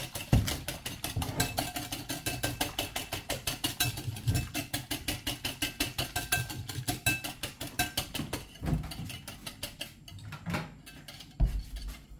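Wire balloon whisk beating eggs and sugar in a ceramic bowl, its wires clicking against the bowl quickly and evenly, about six strokes a second. The beating stops about ten seconds in, followed by a few separate knocks.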